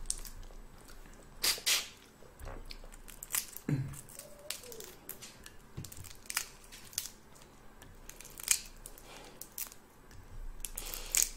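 Shells of cooked red shrimp being cracked and torn apart by hand: scattered sharp crackles and snaps at an irregular pace, a few louder than the rest.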